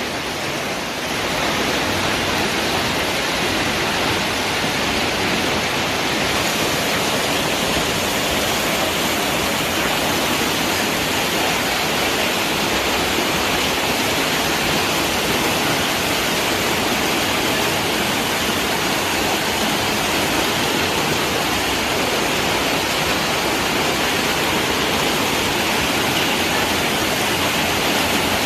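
Heavy rain with hail pelting down: a dense, steady hiss.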